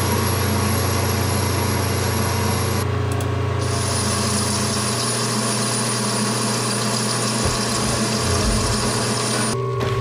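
Metal lathe running, its cutting tool turning down a thick-walled tube with a steady machining hiss over the hum of the machine. The cutting sound stops abruptly near the end.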